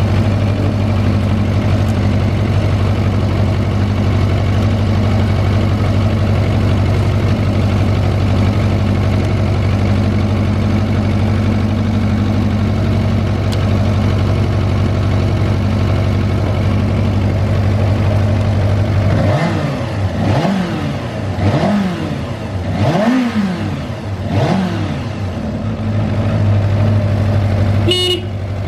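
Suzuki GSX-R400 inline-four idling steadily, then revved in about five quick throttle blips, each rising and falling. The idle is stable with no abnormal noise. Near the end the horn sounds briefly, twice.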